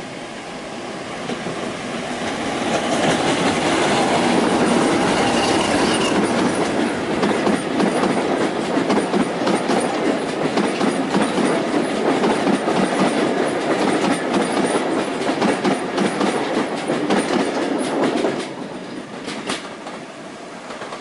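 Class 50 diesel locomotive 50049 passing close by with its English Electric V16 engine running, then a rake of coaches clattering over the rail joints for about twelve seconds. The sound drops away suddenly at about eighteen seconds as the last coach passes.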